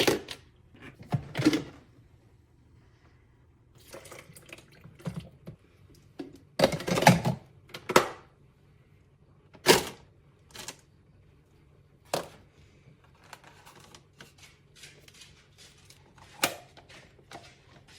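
Irregular plastic clicks, knocks and clatter from parts of a Cuisinart grind-and-brew coffee maker being handled, with a cluster of knocks about seven seconds in and sharp single clicks later.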